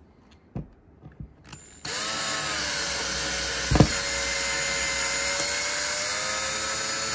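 Electric drill starting up about two seconds in and running at a steady speed to the end, with one sharp knock partway through; a few light knocks come before it starts.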